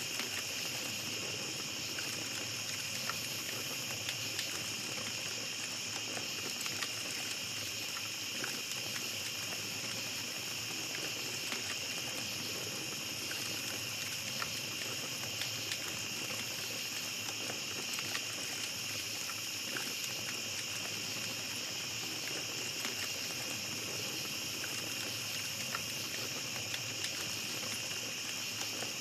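Night forest ambience: a steady chorus of high, unbroken insect trilling, with a small campfire crackling in scattered faint pops throughout.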